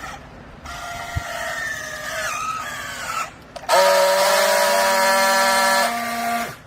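Hydraulic clothing baler whining under load: a wavering whine that drifts slightly lower for about two and a half seconds, then after a brief break a louder, steady whine for about three seconds that cuts off suddenly near the end.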